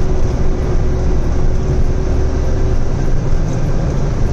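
Truck engine and road noise heard from inside the cab while driving at speed: a steady, loud low rumble.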